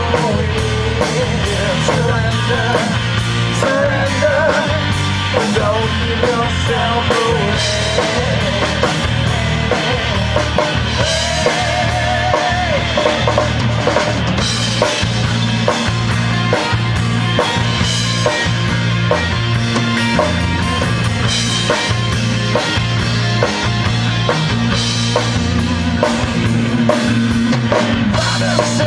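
Live rock band playing through a small PA, with a steady drum-kit beat, bass and electric guitar.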